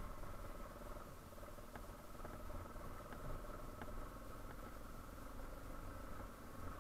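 Yamaha Serow 250's single-cylinder engine running steadily, with a few faint ticks.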